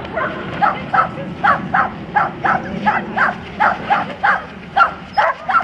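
Dog barking repeatedly and steadily, about three short barks a second, over a low steady background rumble.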